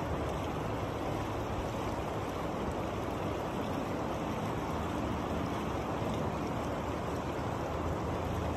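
Steady rushing of a fast river current running over a shallow, rocky riffle.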